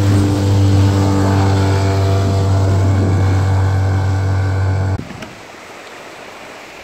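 Four-stroke outboard motor running steadily under way, with wind and water rushing past. It cuts off abruptly about five seconds in, leaving small waves washing onto a pebble shore.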